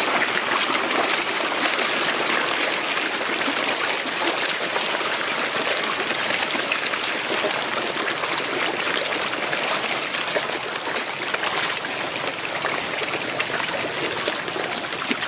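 Koi churning the water as a dense crowd of them crowds at the pond surface: steady splashing with many small splashes and clicks.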